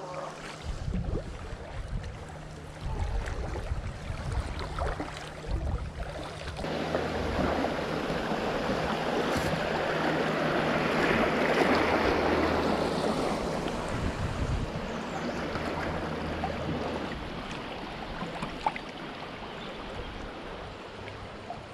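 Kayak paddle strokes dipping and splashing, then the rush of a shallow riffle washing around the kayak, coming in about six seconds in, peaking midway and easing off near the end. A low rumble of wind on the microphone runs underneath.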